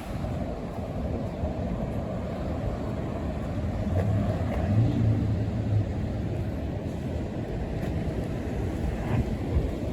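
Street traffic: a steady rumble of passing vehicles, with one engine's hum louder around the middle.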